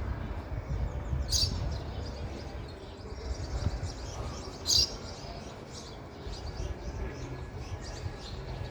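House sparrows chirping in short high chirps, two of them louder, about a second and a half in and just under five seconds in, over a steady low rumble.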